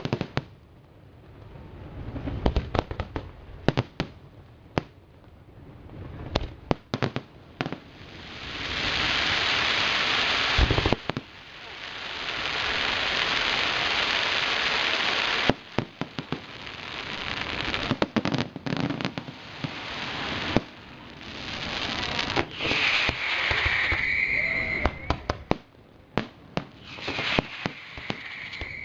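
Aerial fireworks display: many sharp bangs of bursting shells, with long stretches of dense crackling a few seconds each. A high whistle sounds about two-thirds of the way through.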